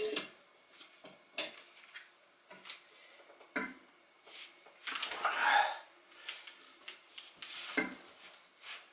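Scattered metal clicks and knocks, with a longer scraping rub about five seconds in: a large C-clamp being tightened with a wrench to press a piston wrist pin into a connecting rod.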